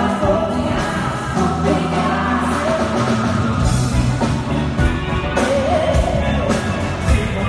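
A live pop band, with electric guitar, keyboards and drums, playing a song with singing over it, heard across a large concert hall.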